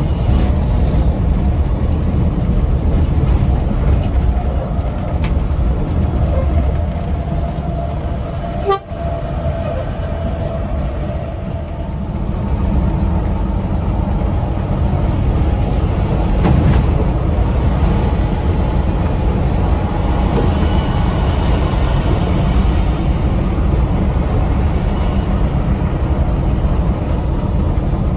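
Mercedes-Benz OH 1626 coach at highway speed, heard from the cab: the rear-mounted six-cylinder diesel and road noise make a steady low rumble. A horn sounds during the first several seconds.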